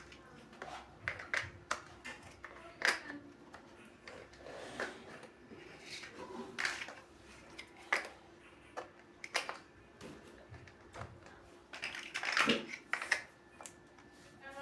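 Plastic building blocks handled and snapped together: irregular sharp clicks, with a brief flurry of rattling clicks near the end.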